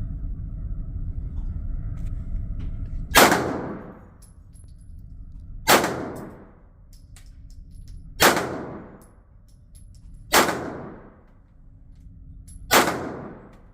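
Glock 19 5th Gen 9mm pistol fired five times at a slow, even pace, about two and a half seconds apart, each shot echoing briefly in the indoor range. A low steady rumble runs under the first three seconds.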